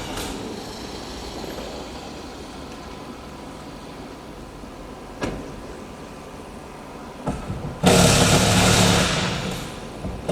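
A car engine running loud for about a second and a half near the end, after a few clicks, over low steady background noise. A single sharp click sounds about five seconds in.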